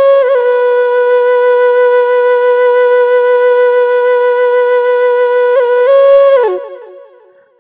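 Flute music: the flute holds one long note with small ornaments, rises briefly, then steps down in a short falling run and fades out near the end.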